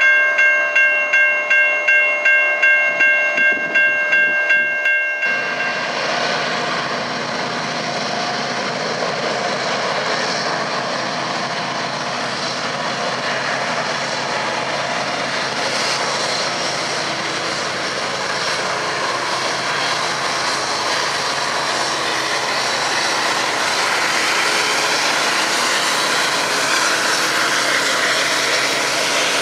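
Railroad crossing bell ringing rapidly, about three strikes a second, cutting off about five seconds in. Then Norfolk Southern diesel locomotives and a double-stack container train pass with a steady rush of engine and wheel noise.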